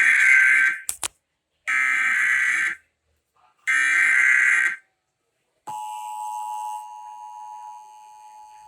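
Emergency Alert System test: three one-second bursts of the SAME header's data tones, a second apart, then the two-tone attention signal starting about five and a half seconds in, a steady tone that gets quieter in steps.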